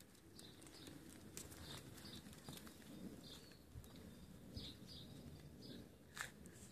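Faint, scattered light pattering of a small dog's claws on a tiled patio, with one sharper click about six seconds in.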